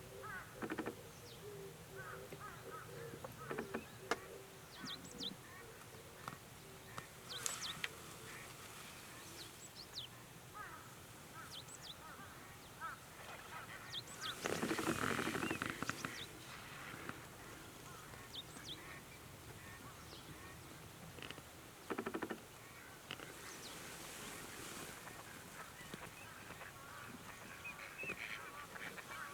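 Waterbirds on a river giving scattered short honking and squawking calls, with a louder rushing noise of about two seconds near the middle and a shorter one later.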